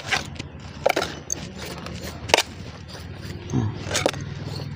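Kitchen knife scraping along the skin of whole raw fish: about four short, sharp scrapes. A low steady hum comes in about three and a half seconds in.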